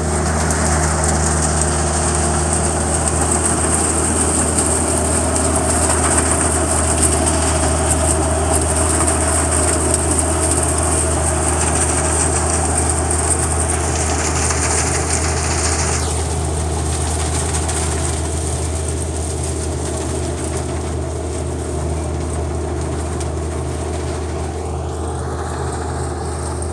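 Self-propelled grape harvester's engine running steadily under load as it shakes grapes from the vines, with a high hiss above the engine note. The sound drops about sixteen seconds in and then fades gradually as the harvester moves off down the row.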